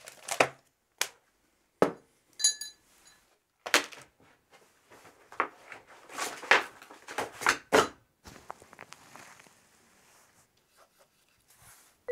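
Art supplies and paper being handled on a desk: a string of short knocks and rustles, with a brief ringing clink about two and a half seconds in, then fainter rustling over the last few seconds.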